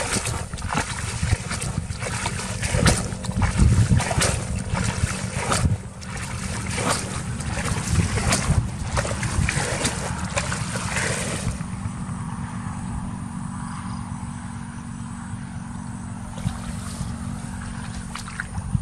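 Muddy water splashing and pouring as a plastic basin scoops it up and throws it out of a shallow ditch. The ditch is being bailed dry to catch fish. Repeated splashes for the first eleven seconds or so, then quieter dribbling.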